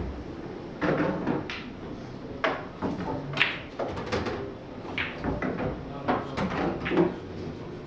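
Repeated sharp clacks of pool balls and cue strikes, about a dozen at uneven intervals.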